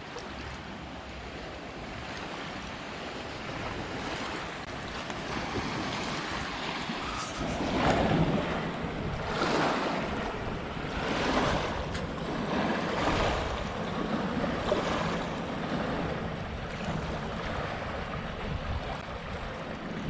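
River water washing against the bank in repeated surges, about one every one and a half to two seconds from halfway through, with wind buffeting the microphone.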